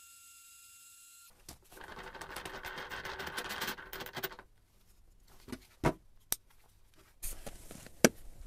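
Greenworks cordless electric hydraulic jack, its ram going down with a dense, fast rattle for about three seconds. A few light knocks follow, then a sharp click near the end.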